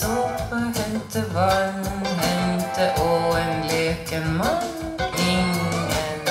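Recorded Norwegian ballad in a passage without lyrics: a melodic lead line, with a rising slide about four and a half seconds in, over a steady bass, played back through Qinsound LS3/5A bookshelf speakers.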